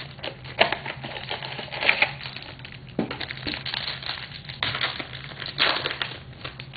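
Plastic trading-card pack wrapper crinkling and tearing as hands open it, a run of irregular crackles and clicks.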